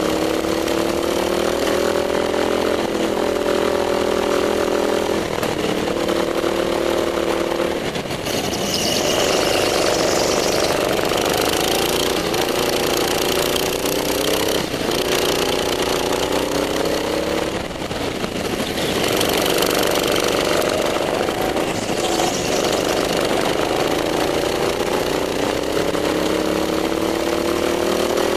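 Small petrol engine of an indoor rental go-kart, heard from the driver's seat, repeatedly climbing in pitch under throttle down the straights and dropping back as the driver lifts for the corners, with short dips about a third and two thirds of the way through.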